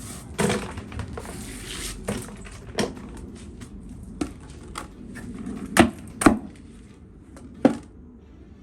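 Sharp, irregular knocks and clunks, about ten strikes, with scraping in the first couple of seconds: hard building materials being handled and set down.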